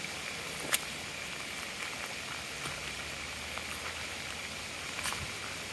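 Steady hiss of water, with a sharp click less than a second in and a fainter click near the end.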